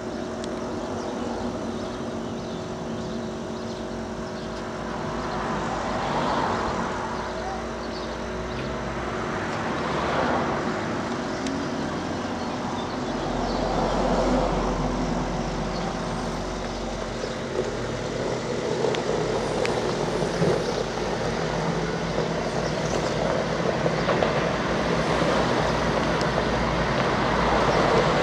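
Caterpillar TH407 telehandler's diesel engine running as the machine drives closer. Its sound swells and eases several times, and it grows louder near the end.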